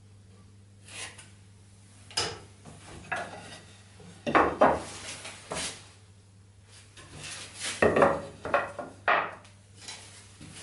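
Wooden breadboard end handled on a solid-wood tabletop: knocks and scrapes of wood on wood as the strip is slid, lifted and set down. There is a sharp knock about two seconds in, and clusters of knocks and scrapes around the middle and again near the end.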